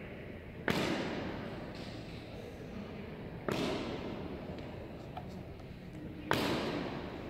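Honour-guard drill during a changing of the guard: three sharp, loud strikes about three seconds apart, each followed by a long echo that dies away slowly.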